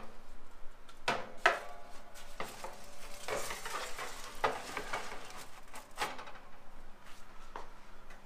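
Foil-lined metal baking sheet knocking and scraping against a wire oven rack as it is slid into the oven, with the aluminium foil crinkling. There are several sharp metallic knocks, the two near the start ringing briefly.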